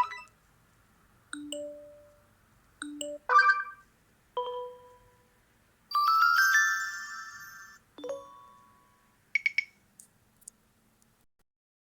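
A series of about eight short TCL 40 SE phone notification tones, different chimes played one after another, each a second or so long and fading out, with short silent gaps between them. The longest and loudest, a bright multi-note chime, comes about six seconds in.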